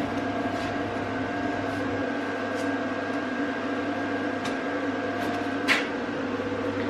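Steady machine hum with a thin high tone running through it. A few light clicks from the small steel brackets being handled in gloved hands, one sharper click near the end.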